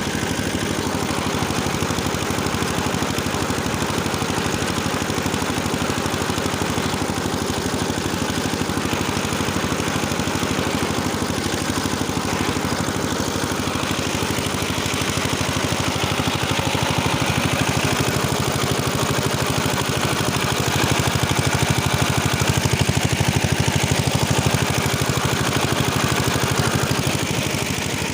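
Engine running steadily under load as it drives a rotary tiller through the soil; the tiller has been cut down to 80 cm wide because the machine laboured with the full width. It gets a little louder past the middle and eases slightly near the end.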